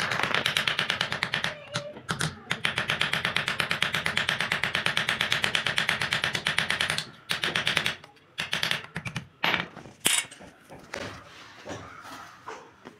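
Small hammer tapping rapidly and evenly on a spoon's wooden handle held against a steel anvil. The taps stop about seven seconds in, followed by a few scattered knocks.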